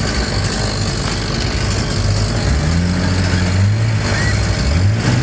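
Mercury outboard jet motor idling, its pitch rising and falling as the throttle is eased on and off twice.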